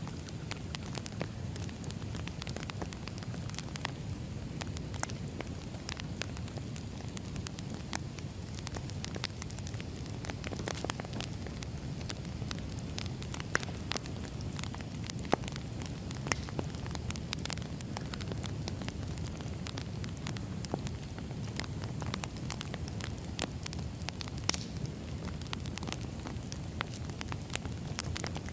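Wood fire crackling: irregular sharp pops and snaps, a few louder than the rest, over a steady low rumble of the burning logs.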